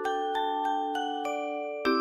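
Background music: a light, bell-like melody of struck notes, about three a second, over a held chord that changes near the end.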